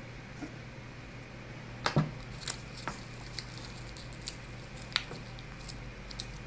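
Scattered small clicks and crinkles of gumdrop candies and their plastic bag being handled at a table, the loudest about two seconds in, over a steady low hum.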